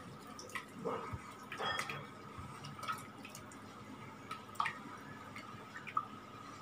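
A hand mixing thin dhokla batter in a stainless steel bowl: irregular wet squelches and drips, with sharp clicks here and there from fingers knocking the bowl.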